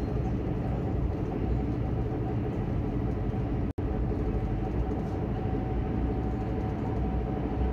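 Steady running noise of a Stadler FLIRT diesel multiple unit at speed, heard inside the carriage: an even low rumble with a faint steady whine above it. The sound drops out completely for an instant about halfway through.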